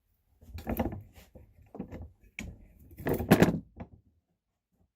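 Handling noise on a workbench: a run of irregular scrapes and knocks as steel saw blade pieces are moved and retraced, loudest about three seconds in.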